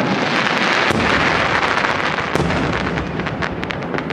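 Aerial firework shells bursting in quick succession, a dense, continuous rumble and crackle. Sharp reports come about a second in and again a little before halfway. Scattered crackling pops follow as the noise slowly fades.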